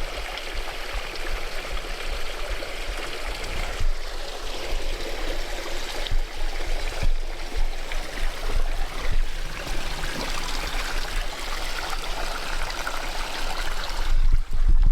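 Shallow creek water running and trickling over rocks, a steady rushing wash.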